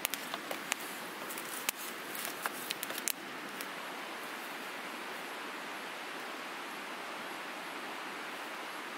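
Campfire of burning sticks crackling, with sharp pops and snaps over a steady hiss. The pops stop about three seconds in, leaving only the even hiss.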